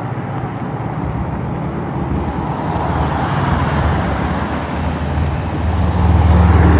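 Road traffic: a motor vehicle engine humming steadily under tyre and road noise, getting louder near the end.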